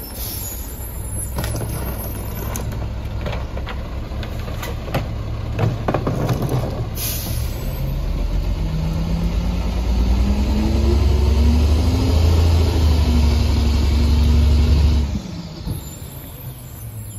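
Mack MR rear-loader garbage truck: knocks and clunks of trash going into the hopper, a short air-brake hiss about seven seconds in, then the diesel engine revving up in a steady climb, holding high and cutting off suddenly about fifteen seconds in.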